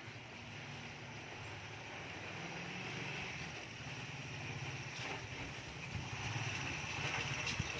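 A motor vehicle's engine running, its low hum growing steadily louder, over a steady background hiss.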